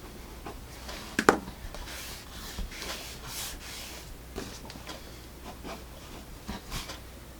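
Mechanical pencil's 0.7mm graphite lead writing on paper: soft scratching strokes, quiet as pencil writing goes, with a few sharp taps or clicks, the loudest about a second in.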